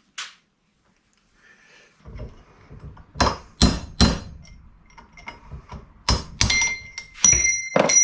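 Hammer blows on a steel punch, driving a wheel bearing race out of a vehicle's front hub: three strikes, a pause, then four more. The later strikes ring with a clear metallic tone as the race works loose.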